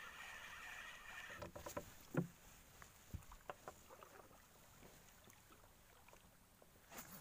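Fishing rod and spinning reel being handled in a small boat. A faint steady whirring stops about a second and a half in. Scattered light clicks and two dull knocks follow.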